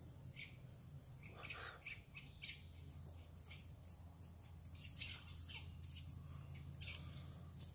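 Squirrels squabbling: short, sharp, high-pitched chirps and clicks at irregular intervals, a few a second, over a low steady hum.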